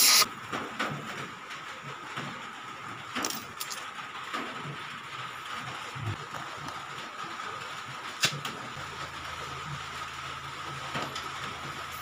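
A gas torch flame hissing steadily while it heats the copper pipework at a chest freezer's filter drier, with a sharp knock right at the start and a few lighter clicks of tools on the pipes.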